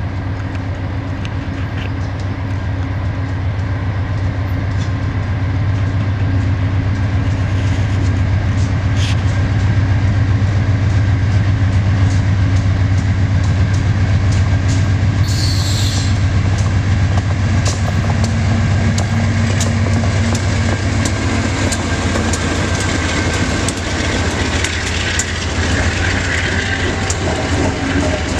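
Diesel freight locomotives, a Maine Central/Pan Am lash-up, approaching and passing. Their engines give a steady low drone that grows louder as they near, then wheels click over the rail joints as they roll by.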